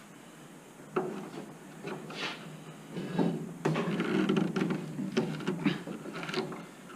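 Car door latch and window mechanism being handled and worked. A sharp knock comes about a second in, then another near three seconds. From then on there is a stretch of rattling and scraping, dotted with sharp clicks.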